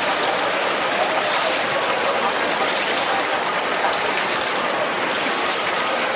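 Steady rushing and splashing of pool water as swimmers swim freestyle.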